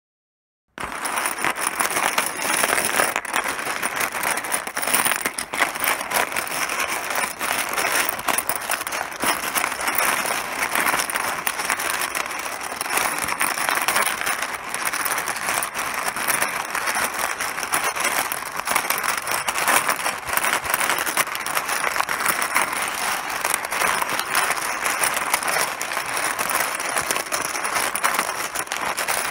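Mahjong tiles clattering continuously: a dense, steady rattle of many small hard pieces knocking together, starting just under a second in.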